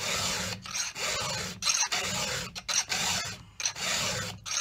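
Round file rasping across the cutters of a chainsaw chain, five even strokes about a second apart with a short pause between each: the chain being sharpened by hand.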